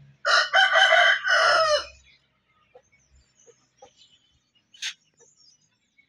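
Aseel rooster crowing once, a loud crow of under two seconds that breaks into a few segments. A short sharp click follows about five seconds in.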